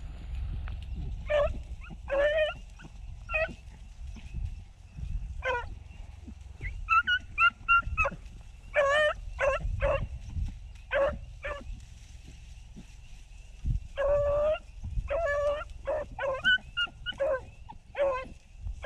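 Beagles baying on a rabbit's trail: a run of short, irregular yelping calls, sometimes overlapping.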